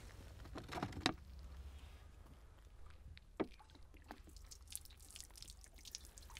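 Faint handling of water-filled plastic bottles: two short knocks, then near the end water trickling and splashing out of a bullet-holed plastic bottle onto a wooden bench.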